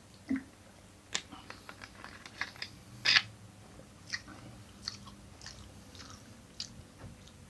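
A person chewing and biting spicy kimchi noodles close to the microphone: scattered wet mouth clicks and small crunches, the loudest about three seconds in.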